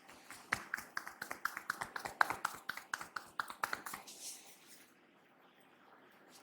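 Rapid percussive tapping by a masseur's hands during a head massage: a run of quick, sharp taps, about eight a second, that stops after some three and a half seconds.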